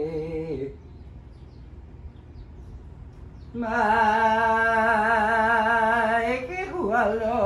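A man chanting a Hawaiian oli (blessing chant): a held note ends shortly after the start, then after a pause of about three seconds he holds one long wavering note for about three seconds, followed by shorter sliding notes near the end.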